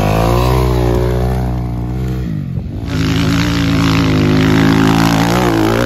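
Dirt bike engine revving hard as it pulls away through soft sand. It drops off briefly about two seconds in, then revs up again.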